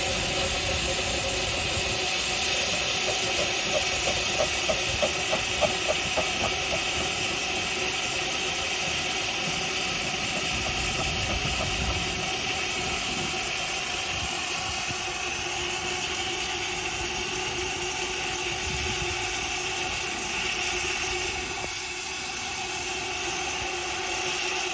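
Standing 15-inch gauge steam locomotive Doctor Syn, a 4-6-2 Pacific, with steam hissing steadily from the front of its cylinders. From about three and a half seconds in, a quick run of about eight regular beats is heard over the hiss.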